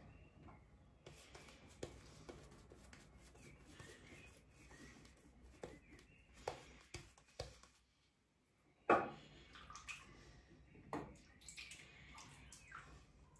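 Edwin Jagger 3one6 safety razor with a Tatara blade scraping through lathered stubble in short strokes on the with-the-grain pass, with scattered sharp clicks, the loudest about nine seconds in, and a little water dripping.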